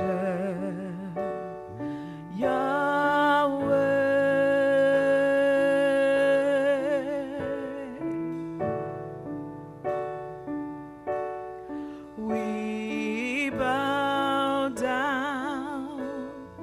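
A woman singing a slow gospel praise song in long held notes with wide vibrato, accompanied by a Roland Juno-DS keyboard playing sustained chords.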